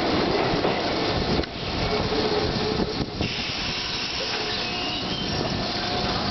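Keisei 3300-series electric train running along the platform: a steady rumble of wheels on rail, loudest for about the first second and a half and then lower, with a faint high wheel squeal later on.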